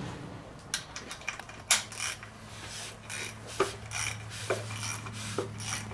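Ratchet wrench and socket working the connecting-rod bolts of a short block: irregular sharp metallic clicks and clinks of steel tools on the crank and rod caps while the bolts are run down for torquing.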